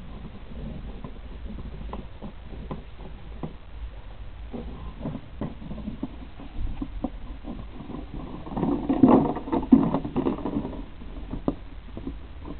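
Puppies play-fighting on grass: scattered small knocks, scuffles and rustles, with a louder stretch of puppy noise about eight and a half seconds in.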